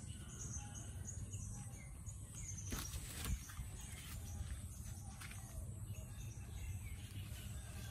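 Outdoor ambience: a run of short, high chirps repeating through the first few seconds over a steady low rumble, with two sharp knocks close together about three seconds in.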